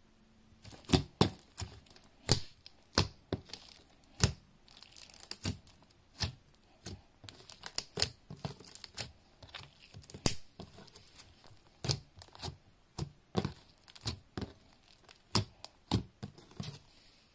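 Glossy slime being poked and pressed with fingertips on a tabletop, giving a dense, irregular string of sharp clicks and pops. The clicks start about a second in.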